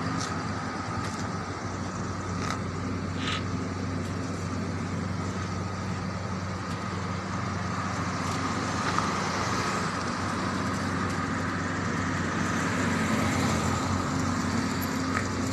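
Steady urban street background noise with a low, even hum, with a few faint ticks in the first few seconds.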